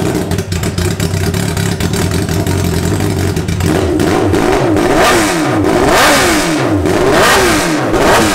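Honda CBR1000RR inline-four engine, freshly rebuilt with handcrafted piston rings, idling steadily and then revved in a quick series of throttle blips from about three and a half seconds in, each one rising and falling in pitch.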